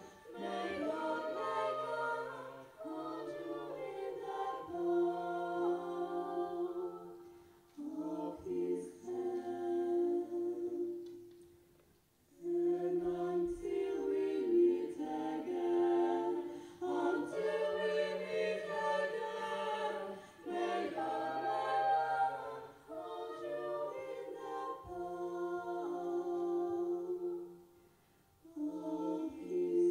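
A young women's vocal ensemble singing a cappella in several-part harmony over a held low note, in slow phrases with brief pauses, the longest about twelve seconds in and near the end.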